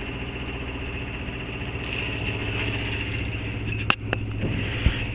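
Sailboat's inboard engine idling with a steady, evenly pulsing low rumble. A sharp knock about four seconds in.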